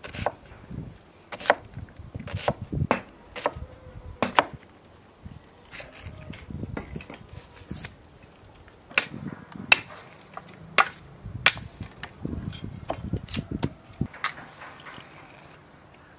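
Knife chopping onion on a wooden cutting board: a run of sharp, irregularly spaced knocks of the blade on the board.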